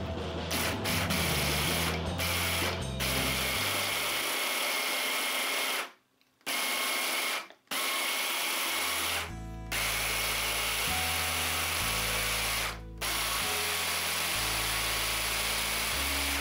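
Electric hand blender's chopper attachment running at full speed, chopping basil leaves in olive oil. It runs in spells, stopping briefly about six and seven and a half seconds in, with shorter dips later.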